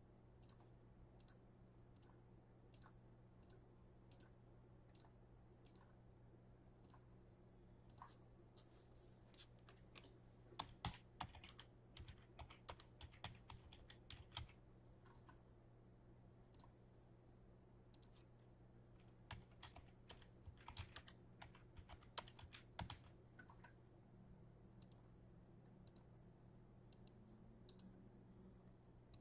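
Faint typing on a computer keyboard in two spells of quick clicks, over a low steady hum.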